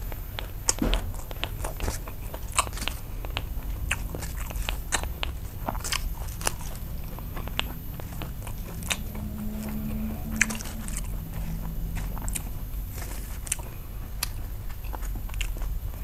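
Chewing of a Vietnamese rice-paper roll of nem nướng (grilled pork sausage) with fresh herbs and pickled vegetables: repeated sharp crunches and wet mouth clicks. The roll is tiring to chew.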